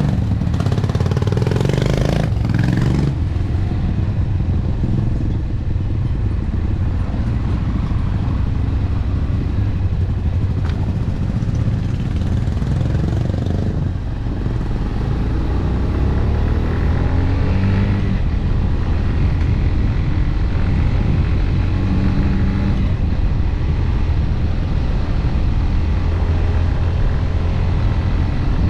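AKT RX1 motorcycle engine running while riding, with wind and road noise over it; the engine pitch rises and falls a few times with throttle changes.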